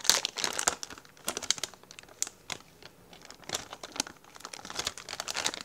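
Plastic packet of soft plastic fishing lures crinkling and crackling irregularly as fingers rummage inside it and pull a lure out.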